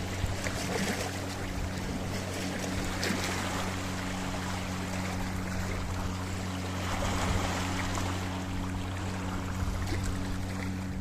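Sea waves washing in over a rocky shore, the rush of water swelling and easing a few times, with a steady low hum running underneath.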